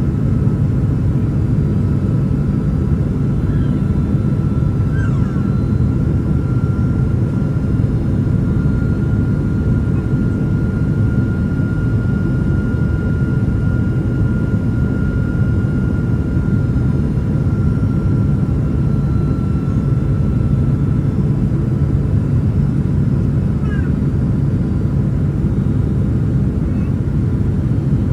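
Steady in-flight cabin noise of a Boeing 767-300ER airliner: a dense low rumble of engines and airflow. A faint high whine rises slightly and then fades away about three-quarters of the way through.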